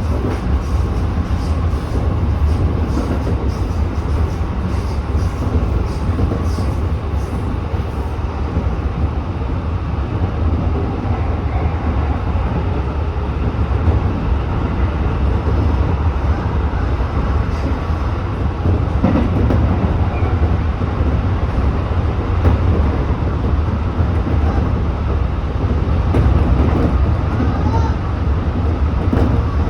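Tobu 8000-series electric commuter train running at speed between stations, heard from on board: a steady low rumble of wheels on rail, with a run of rapid fine clicks through the first several seconds.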